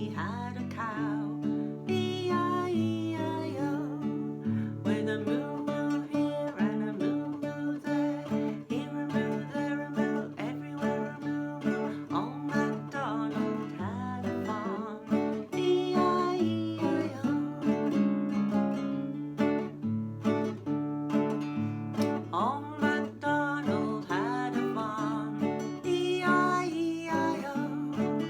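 Acoustic guitar strummed steadily, with a voice singing along.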